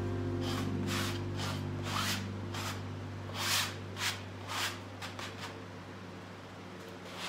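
A hand swiping and smearing wet paint across a stretched canvas: about a dozen short, irregular swishes, with the last of a piece of music fading out in the first seconds.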